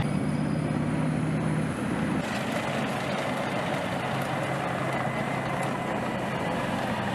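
A vehicle engine running steadily: a low hum under an even rushing noise.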